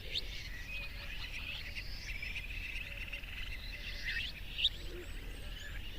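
Several small birds chirping and trilling together in a busy mix of short calls, with one sharp rising note about four and a half seconds in.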